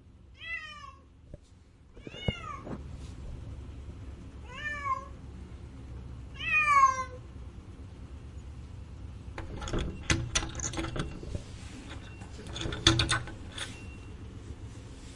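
Domestic cat meowing four times in the first seven seconds, each meow short and falling in pitch, the last one the loudest. Later a cluster of sharp clicks and knocks follows.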